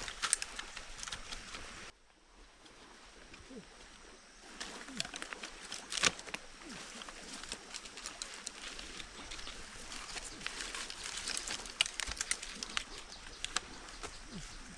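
Outdoor rustling and scattered clicks, with a few short, low bird calls. The sound drops away abruptly about two seconds in and picks up again a couple of seconds later.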